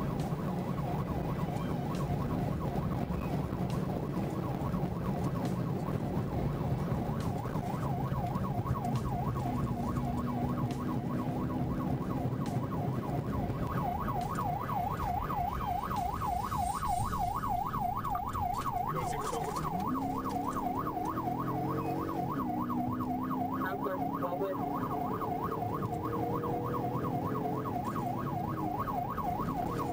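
Police car siren on a pursuing highway patrol car, changing about halfway through to a fast, even warble. Under it are the patrol car's engine and road noise, with the engine note rising and falling in the second half.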